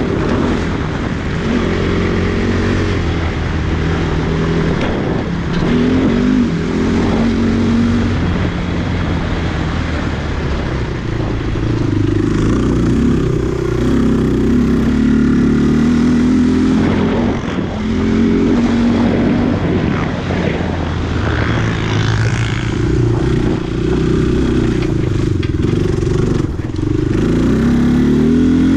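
Dinli A450 quad's single-cylinder four-stroke engine running hard under load on a dirt track, revving up and dropping back again and again as the throttle is opened and closed.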